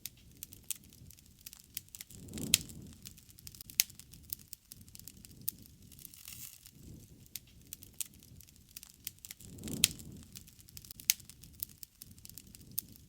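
Wood campfire burning and crackling, with scattered sharp pops and snaps over a soft low rumble of the flames. Two louder, deeper swells, each with a sharp snap, come about two and a half seconds in and again near ten seconds.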